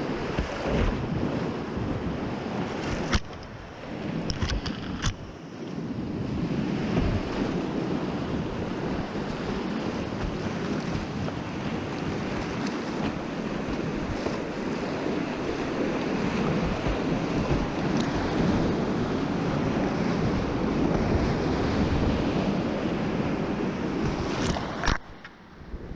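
Whitewater rapids rushing and splashing around a kayak running a class II–III river. The sound twice goes briefly quieter and muffled, a few seconds in and again near the end.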